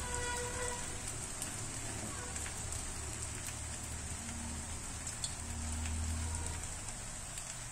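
Macaroni pasta with scrambled egg and masala sizzling steadily in a frying pan, with a faint low hum underneath and a few light ticks.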